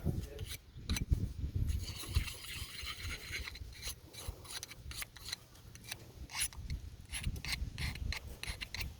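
Honing stone rubbed along the flat outside of a farrier's hoof loop knife in a series of short scraping strokes, turning the filed burr back to the inside of the edge.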